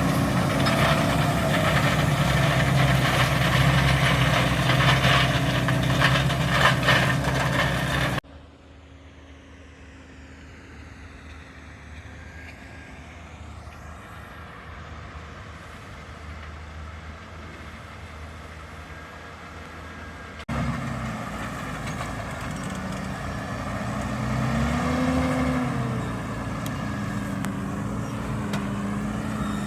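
Valtra Q Series tractor's six-cylinder diesel engine running steadily under load while ploughing. The sound cuts abruptly twice: loud and close, then much quieter and distant for about twelve seconds, then louder again, with the engine pitch briefly rising and falling about 25 seconds in.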